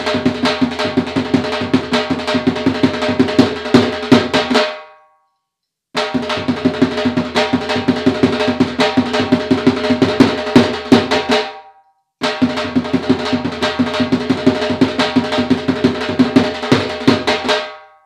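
Punjabi dhol played with its two sticks, the bent bass stick (dagga) and the thin cane stick (tilli), drumming the laggi rhythm in rapid strokes. It comes in three phrases of about six seconds, with a short silent break after the first and after the second.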